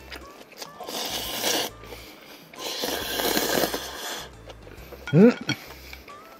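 Two long slurps of spicy cold noodles (bul-naengmyeon) being sucked in from chopsticks, then a brief rising vocal 'mm' from the eater about five seconds in, the loudest sound.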